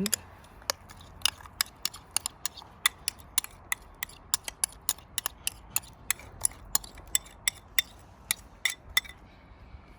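Twist-action spice grinder turned over and over, giving a steady run of sharp ratcheting clicks, about three or four a second, that stops about a second before the end.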